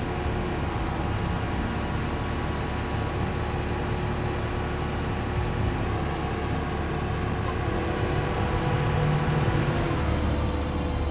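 Diesel engine of a Caterpillar asphalt paver running steadily under load, a constant drone with a deep hum and a few steady tones that grows a little louder near the end.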